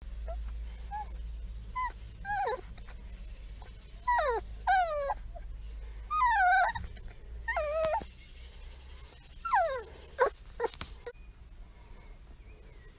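German Shorthaired Pointer puppy whimpering: a string of short, high whines, each falling in pitch, about seven over the first ten seconds.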